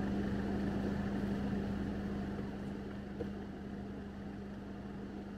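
A steady low mechanical hum at one fixed pitch, with a single faint knock about three seconds in.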